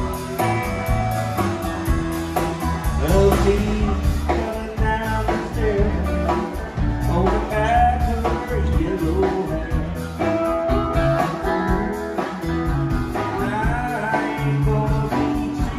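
Live band playing: electric guitars, electric bass, drums with a steady beat and keyboard, with a harmonica playing over the top.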